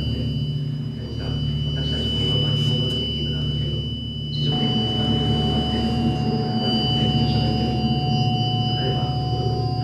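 Electronic drone music: steady high sine-like tones held over a dense low hum. A new mid-pitched tone joins about halfway through.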